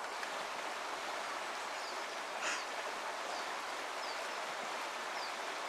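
River current running over a shallow gravel riffle: a steady rush of water. Faint short high chirps repeat about once a second, and a short louder burst comes about two and a half seconds in.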